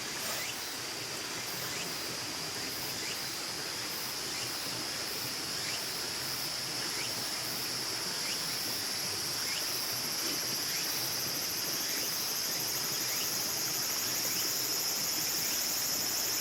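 Insects singing outdoors: a steady, high-pitched buzzing drone that grows slightly louder, with faint ticks under it.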